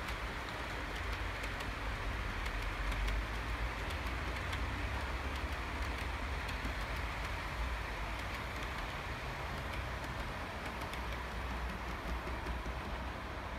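OO gauge model train running along the layout track: a steady low rumble with light, irregular clicking from the wheels on the rails.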